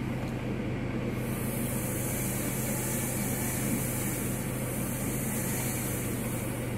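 Gasoline chainsaw running steadily as it cuts up small limbs. A high hiss comes in about a second in and drops away near the end.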